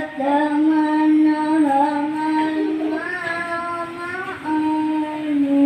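A boy reciting the Quran in the melodic qori (tilawah) style, holding long, drawn-out notes that bend slowly up and down in pitch.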